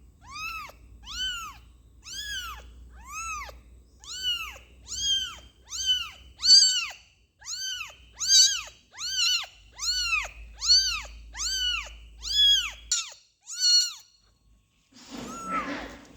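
A kitten meowing over and over, about three cries every two seconds, each a high cry that rises and falls in pitch. The cries stop about two seconds before the end, and a brief, rougher, muffled sound follows.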